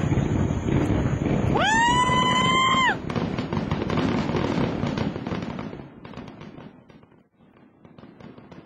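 Aerial fireworks bursting and crackling. A high whistle rises and holds for about a second, about two seconds in. The crackle dies away over the last few seconds.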